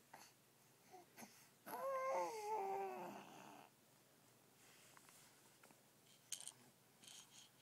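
Baby's drawn-out vocal call about two seconds in, lasting roughly two seconds and dropping in pitch at the end, followed by a few faint clicks.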